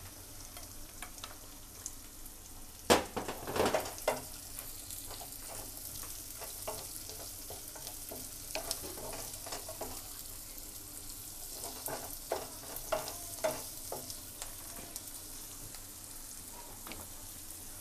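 Chopped onion, garlic and ginger frying in oil in a non-stick pan, a steady sizzle. A wooden spatula stirs and knocks against the pan now and then, loudest about three seconds in.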